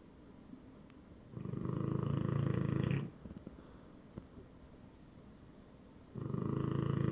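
French bulldog snoring in its sleep: two long snores about five seconds apart, each lasting around a second and a half, the second starting near the end.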